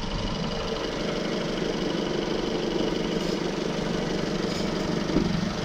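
2015 Jeep Renegade's 2.4-litre MultiAir four-cylinder engine idling steadily with the hood open.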